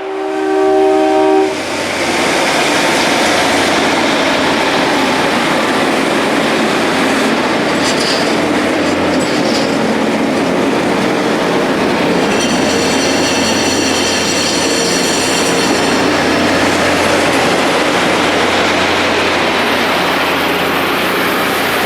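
A rail grinding train sounds a short horn chord, then passes with a loud, steady rush of grinding wheels working the railhead. A high whine joins in for a few seconds about twelve seconds in.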